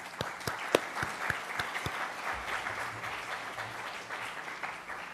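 Audience applauding, with a few loud single claps close to the microphone in the first two seconds; the applause thins out near the end.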